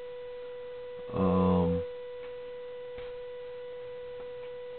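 A steady electrical buzz at one pitch, with overtones, running under everything: a noise in the recording that was also there on an earlier recording and whose cause was not found. A few faint ticks come in the second half.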